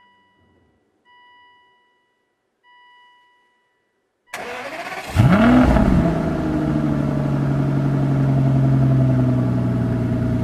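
Three soft electronic chimes from the instrument cluster as the ignition comes on. About four seconds in the starter cranks for about a second, then the 2005 Aston Martin DB9's 5.9-litre V12 catches with a quick rev flare and settles into a steady idle.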